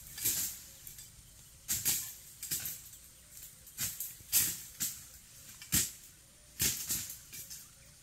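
Dry leaf litter rustling and crackling in short, irregular bursts, about ten in all, two of them with a dull knock.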